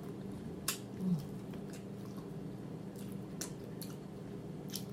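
Close-miked mouth noises of a person chewing smothered chicken, with wet smacks and clicks every second or so. A short low hum comes about a second in.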